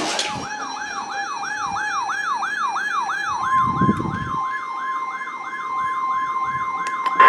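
Weather alert radio sounding a siren-like alert: a rising sweep in pitch that repeats about three times a second. About three and a half seconds in, a steady alarm tone, the weather radio's warning alarm, joins it.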